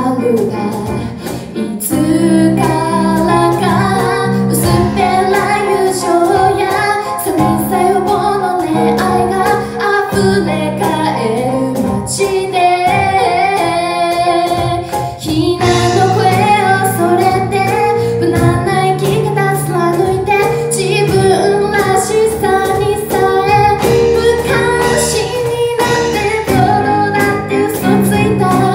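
Live acoustic band: a woman singing a pop melody into a microphone over keyboard chords, strummed acoustic guitar and a cajon beat.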